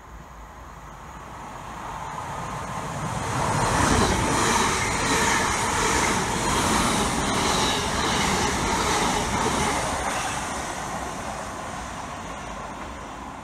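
Two coupled Class 350 Desiro electric multiple units, 350 231 and 350 405, approaching and passing at speed. The sound builds steadily to its loudest about four seconds in, stays loud for several seconds as the carriages go by, then fades as the train draws away.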